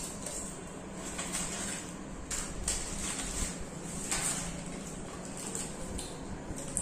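Eating by hand: chewing and hands tearing flatbread and picking at meat on a plate, heard as a few short soft rustles and clicks over a steady room hum.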